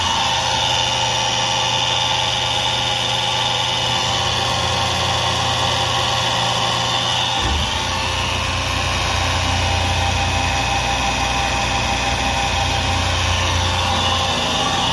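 Vacuum pump of a maple sap tubing system running, a loud steady machine hum. About halfway through, its low drone deepens.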